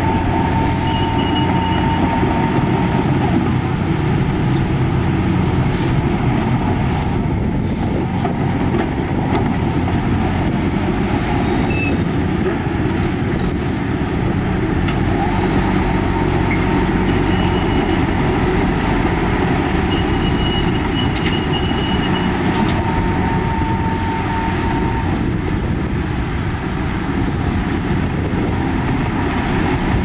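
Heavy diesel construction machinery running steadily, a dense low engine drone with thin high metallic squeals and sharp clicks now and then.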